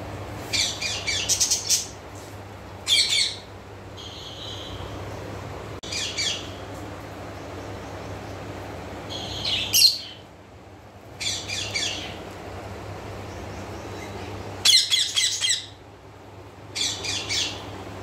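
Rose-ringed parakeets (Indian ringnecks) chirping and squawking in short bursts of rapid repeated notes, about seven bursts spaced one to three seconds apart, over a steady low hum.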